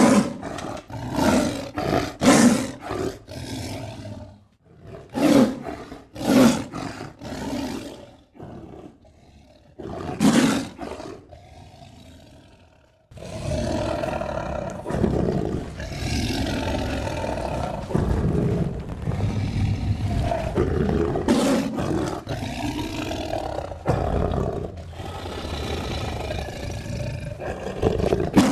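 Tiger roaring and growling: a run of short, rough roars over the first ten seconds or so, then, from about halfway, a long unbroken stretch of growling and snarling.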